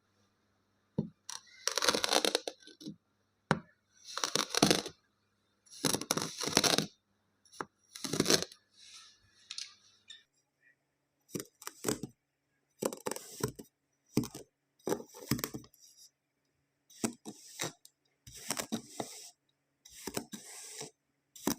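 Kinetic sand being cut and pressed: a series of crunchy, crackling scrapes, each up to about a second long with short pauses between, coming more often in the second half.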